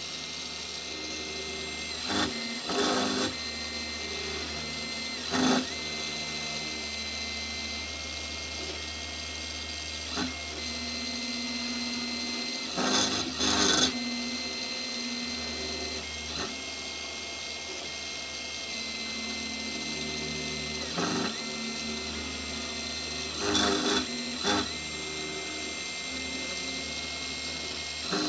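Small CNC milling machine cutting: a steady spindle and stepper-motor whine with a constant high tone, broken by several short, louder bursts as the cutter moves through the work.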